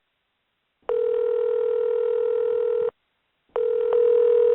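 Telephone call-progress tone heard over the phone line: a steady low tone sounds for about two seconds, stops briefly, then sounds again.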